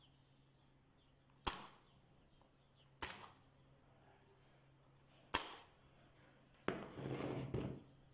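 Corded electric staple gun firing three times into pine slats, each shot a single sharp snap. Near the end comes a knock followed by about a second of scraping.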